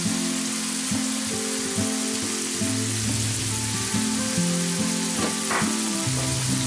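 Minced pork sizzling as it fries in a pan, with background music playing over it.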